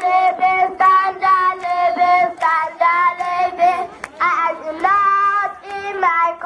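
A child singing a song into a microphone in a high voice, holding steady notes one after another.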